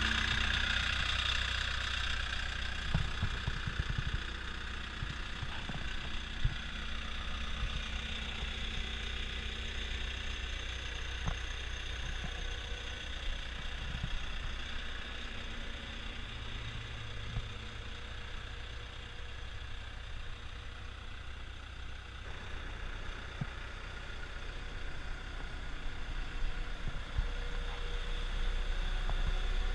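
CAT 252B skid steer loader's diesel engine idling steadily, with occasional short clicks and knocks, growing louder near the end.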